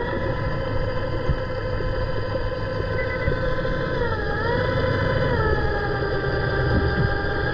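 Steady mechanical drone heard underwater: several whining tones over a low rumble, which dip and shift in pitch about four seconds in and then settle again.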